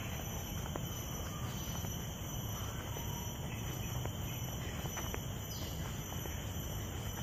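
Outdoor ambience in wooded parkland: a steady high insect drone over a constant low rumble, with a few faint ticks.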